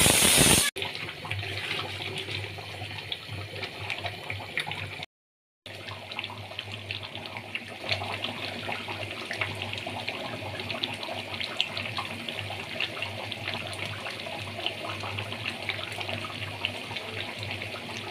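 A pressure cooker hissing steam loudly for under a second, cutting off abruptly. Then a pot of thick meat curry simmering, with a steady patter of small bubbling pops over a low hum.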